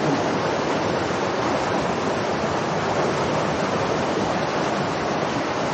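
Steady rush of flowing creek water, an even noise with no separate splashes standing out.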